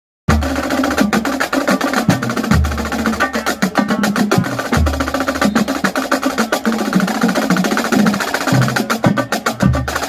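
Marching band drumline playing a cadence: rapid snare drum strokes over low bass drum notes that come every couple of seconds.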